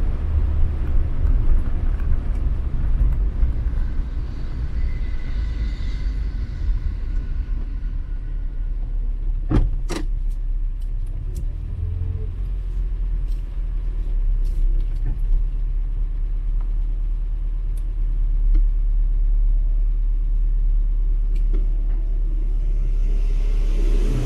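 Skoda car being driven: steady engine and road rumble with a heavy low drone, and two sharp clicks about ten seconds in.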